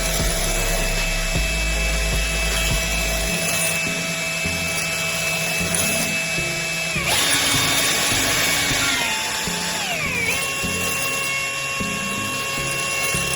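Electric power tool running with a steady motor whine. Its pitch shifts about seven seconds in, with a brief rougher, noisier stretch, then glides down and settles around ten seconds in.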